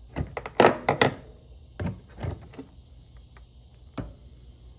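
A handful of short, sharp knocks and clicks, spaced irregularly, from plastic body panels being handled on a Honda Talon side-by-side.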